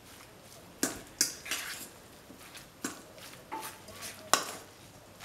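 A metal fork mixing ground meat in a stainless steel bowl, its tines clinking and scraping against the bowl in irregular strokes. There are about six sharp clicks, the loudest a little after four seconds in.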